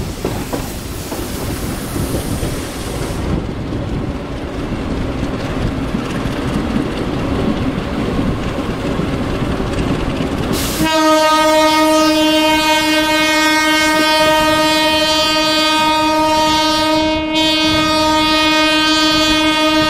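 Rumble and rush of a moving train, then a diesel locomotive horn sounds about eleven seconds in: one long chord blast that holds on, dipping briefly near the end, louder than the train noise.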